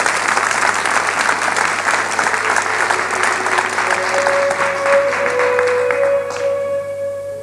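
Audience applauding, dying away near the end, while sustained orchestral string notes begin about four seconds in as the song's introduction starts.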